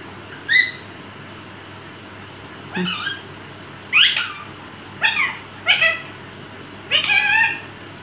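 Indian ringneck parakeet giving a string of short, high, squawking calls, about six, one every second or so.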